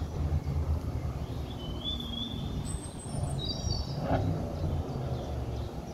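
Outdoor riverside ambience: a continuous low rumble with a few short, high bird chirps in the middle and a single soft knock about four seconds in.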